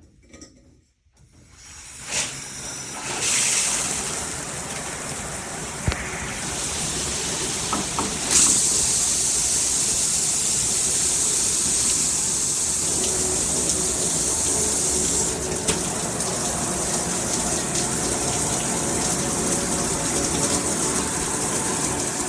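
Water spraying from a dual shower head combo. The spray comes on about a second in and gets louder and brighter in two steps, around three seconds and around eight seconds in.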